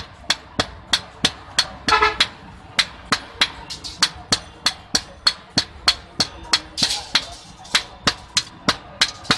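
Blacksmith's hand hammer and a striker's sledgehammer taking turns forging a red-hot boti blade on an anvil: sharp metal-on-metal strikes in an even rhythm, about three a second.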